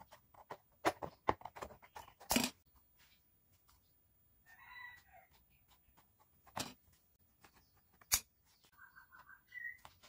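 Scissors cutting a thin plastic sheet: a quick run of crisp snips in the first two and a half seconds, then single snips at about six and a half and eight seconds. A bird calls briefly in the background about five seconds in and again near the end.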